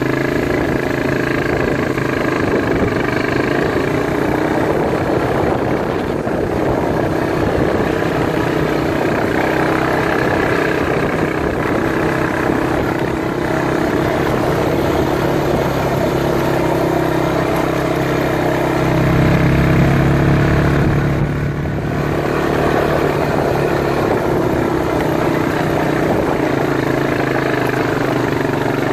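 Quad bike engine running steadily under load as it climbs a gravel track, heard from the rider's seat; it gets louder for a couple of seconds about two-thirds of the way through, then drops back for a moment.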